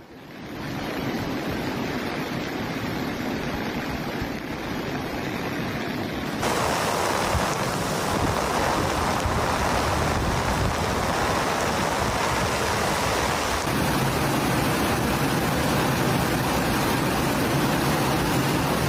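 Steady rushing noise of fast-flowing floodwater, without any distinct events. It steps up abruptly and grows louder about six seconds in, then changes again about fourteen seconds in.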